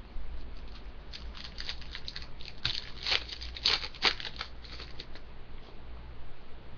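Trading cards and their pack being handled: a quick run of rustles and flicks, strongest in the middle, that dies away about five seconds in.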